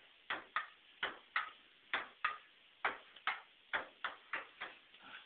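Table tennis ball in a rally played with stools for paddles: sharp clicks as it bounces on the table and is struck by the stool seats. The clicks come mostly in quick pairs, about one pair a second.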